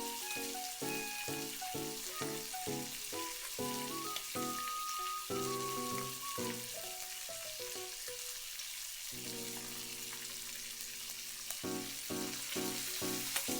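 Dashi-seasoned egg mixture sizzling in a hot oiled frying pan, as a steady hiss. Background music with a plucked melody plays over it.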